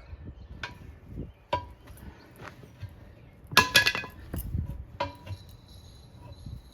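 Steel tire irons knocking and clanking against a wheel rim as a tire bead is levered on by hand: a few separate metal knocks with a short ring, and a quick cluster of louder clanks about three and a half seconds in, over low scraping and handling noise.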